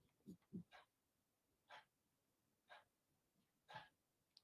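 Near silence: room tone with a few faint short sounds, several about a second apart.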